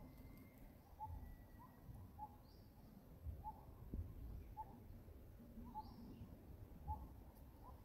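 A bird calling faintly, repeating a short note about once a second, with a few faint higher chirps now and then over a low rumble.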